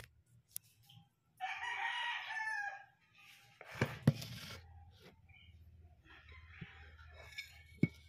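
A rooster crows once, a single call of about a second and a half. About midway come two sharp knocks close together, the loudest sounds, with another smaller knock near the end.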